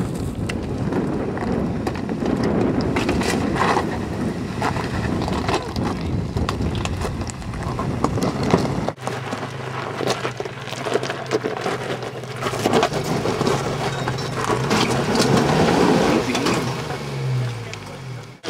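Nissan Xterra driving off-road over a rocky, gravelly wash, its engine running under the crunch of tyres and knocks of stones. The sound changes abruptly about halfway to a steadier engine hum, and the engine note falls away just before the end.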